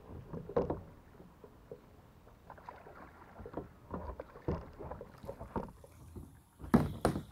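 Kayak being paddled: irregular paddle strokes splashing in the water, the loudest a quick pair near the end.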